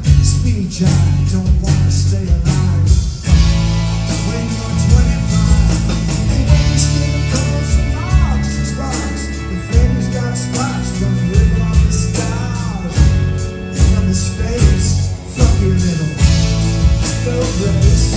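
Live rock band playing, with heavy bass and drums under a gliding melody line.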